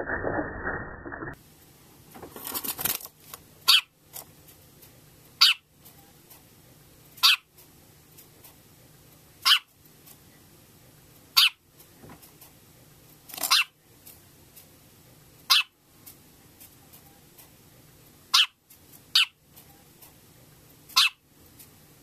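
A dog barking: single short, sharp barks repeated about every two seconds, after a second of muffled noise at the start.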